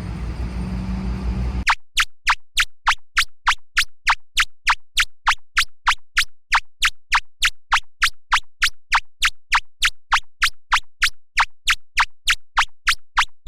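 Outdoor background rumble, cut off sharply after about a second and a half by an edited-in electronic sound effect: short sweeping zaps repeated evenly, about three a second, over complete silence.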